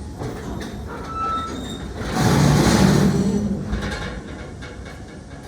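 Freight train rumbling past on the rails, with a louder stretch about two seconds in that lasts roughly a second and a half before the sound fades.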